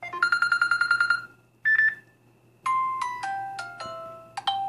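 Samsung Galaxy A5 (2017) built-in loudspeaker playing stock ringtone previews one after another as they are tapped in the list: a fast repeated beeping tone, a single short beep, then a falling run of chime-like notes, with another tone starting near the end. The playback is not great and not loud.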